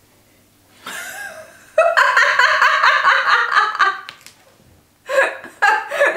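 A woman laughing loudly and high-pitched, starting about two seconds in and going on for about two seconds, with two shorter laughs near the end.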